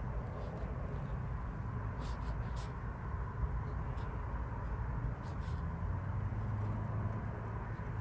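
Steady low background rumble, with a few faint short ticks.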